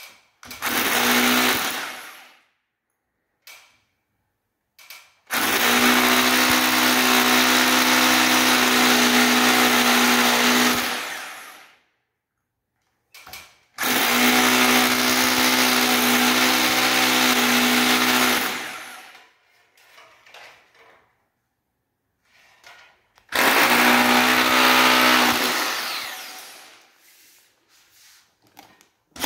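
Corded hammer drill boring into a wall in four bursts: a short one at the start, two long ones of about five seconds, and a shorter one near the end. Each burst has a steady motor whine and dies away as the motor spins down.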